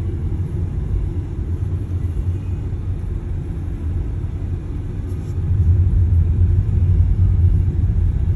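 Steady low rumble of a moving car heard from inside the cabin: engine and road noise while driving, growing louder about five and a half seconds in.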